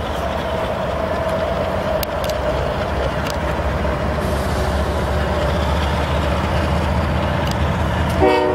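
Canadian Pacific GE ES44AC diesel locomotive approaching under power, its engine a steady low rumble that grows louder. A horn chord starts sounding just before the end.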